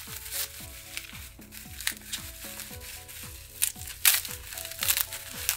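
Bubble wrap crinkling and crackling in irregular bursts as hands pull it apart, over background music with a steady beat. The sharpest crinkles come about four to five seconds in.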